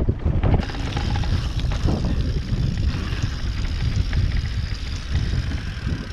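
Wind buffeting the microphone of a mountain bike rider's action camera, over a steady low rumble of the bike rolling along a dirt trail; a higher hiss joins in under a second in.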